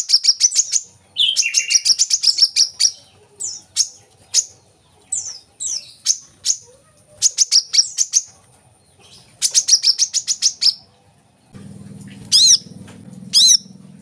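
Brown-throated sunbird singing: bursts of rapid, high, sharp chirps with short pauses between them. Near the end come two separate down-slurred calls over a low hum.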